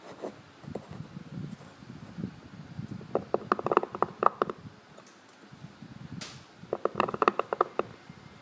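Seal-carving knife cutting into the face of a Helan stone seal, chipping stone away. Two runs of quick, crisp chipping clicks, one about three seconds in and another about seven seconds in, with soft rubbing of the stone in the fingers between.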